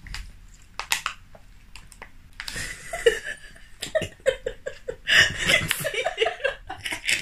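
A few sharp crinkles and clicks as a plastic cake wrapper is handled, then two women laughing in quick repeated bursts from about two and a half seconds in.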